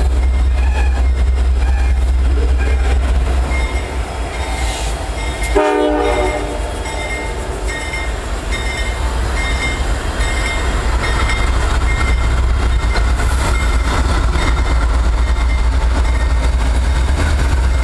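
Norfolk Southern diesel locomotives rolling slowly past close by, engines rumbling deep and steady with wheel and rail clatter. A short horn blast sounds about six seconds in, and the rumble grows louder in the second half as the units pass the camera.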